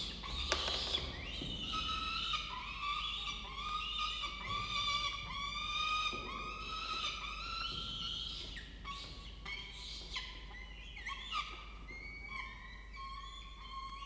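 Peregrine falcon chicks giving a continuous chorus of high, wavering food-begging calls, several a second and overlapping, while being fed. The calls grow somewhat quieter in the second half.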